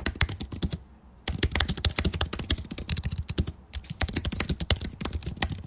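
Fast typing on a computer keyboard: a quick run of key clicks that breaks off briefly about a second in and again about three and a half seconds in.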